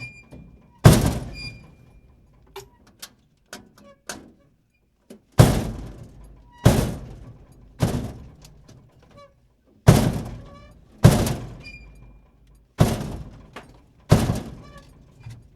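Dumpster door slammed shut again and again: about eight loud bangs, each followed by a short metallic ring that dies away. There are a few light knocks between the first and second slams.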